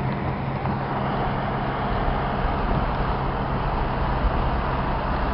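Steady rushing wind and road noise inside a car driving through a severe thunderstorm, with a low, even engine hum underneath.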